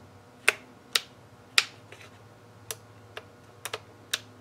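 Sharp plastic clicks from the toggle switches of a Flysky FS-i6 radio transmitter being flipped, about eight in all at uneven intervals, two of them in quick succession near the end.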